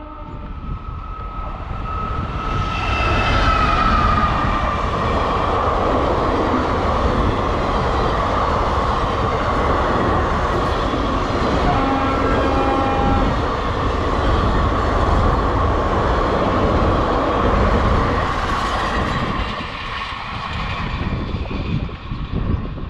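An Indian Railways train of blue passenger coaches passing close by at speed: the rumble and rattle of the wheels on the rails build over the first few seconds, hold steady while the coaches pass, and ease off near the end as the train draws away. A high tone drops in pitch about three seconds in.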